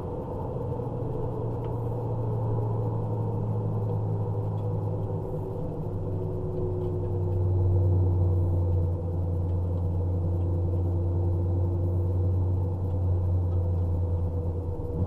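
Honda Civic EG6 heard from inside the cabin at speed on track: a steady low engine and road drone with engine tones that slowly shift in pitch, dipping briefly about nine seconds in at a gear change.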